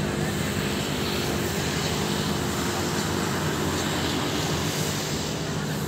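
Street traffic: a steady engine drone over continuous road noise, the drone fading a little near the end.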